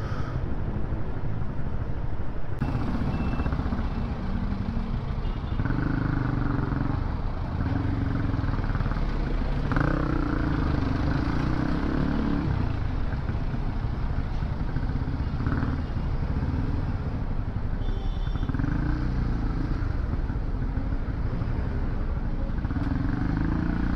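Honda CB150R single-cylinder motorcycle engine running while being ridden, its tone shifting up and down, over a steady low rumble of wind.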